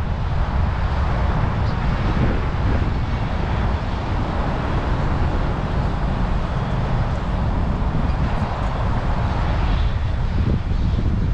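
Steady outdoor rumble, with wind buffeting the microphone in uneven low gusts.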